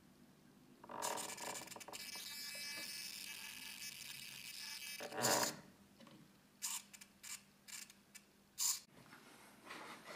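Small electric drive motor and speed controller of a homemade RC car running under throttle: a steady high-pitched electric whine with several even tones for about four seconds, then one loud short burst, then several quick short blips of the motor.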